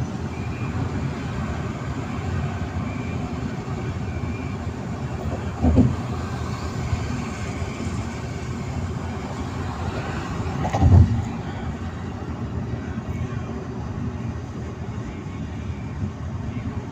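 Steady road and engine noise of a moving car, heard from inside the cabin, with two short low thumps about six and eleven seconds in.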